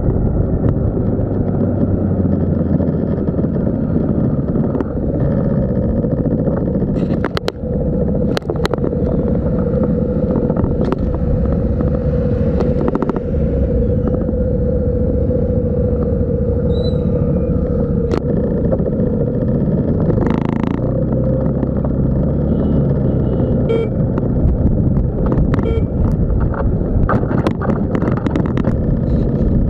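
Motorbike engine running steadily while ridden along a road, with continuous engine and road noise and a few brief clicks.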